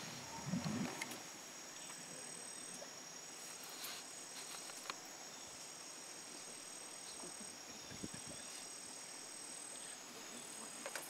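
A steady chorus of rainforest insects: a high, shrill drone made of several steady tones. A brief low noise comes about half a second in.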